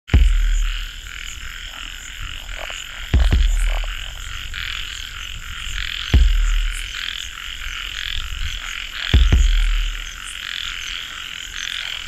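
Steady night chorus of insects and frogs calling, with a deep low thud every three seconds, four times in all.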